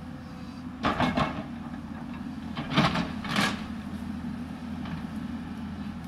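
Hyundai 220 crawler excavator's diesel engine running steadily as the bucket digs into the hillside, with two louder bursts of scraping and sliding earth about a second in and again around three seconds in.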